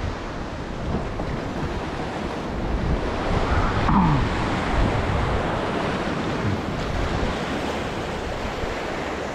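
Ocean surf washing against the boulders of a rock jetty, with wind on the microphone. It swells a little louder about four seconds in.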